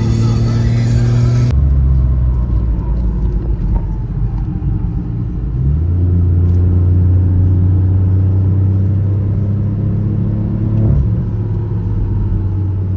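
A BMW F20's B38 three-cylinder turbo engine, fitted with a catless downpipe exhaust, is running under way on a track lap. It holds a steady note that changes pitch about two, six and eleven seconds in. Background music is heard briefly at the very start.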